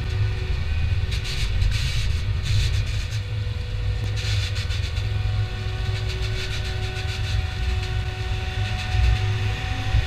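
John Deere S670i combine harvester on rubber tracks running, a steady deep rumble with a constant hum, and a hiss that swells and fades now and then.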